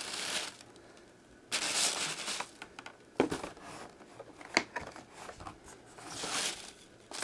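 Packaging being handled: crinkling and rustling of wrapping material, in a burst about a second and a half in and again near the end, with a few sharp taps in between.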